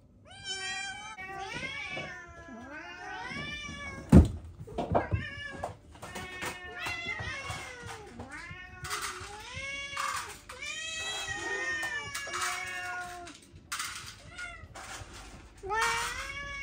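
Several domestic cats meowing over and over for their breakfast, one call after another, some overlapping, each call rising and falling in pitch. A sharp thump about four seconds in, with a smaller knock a second later.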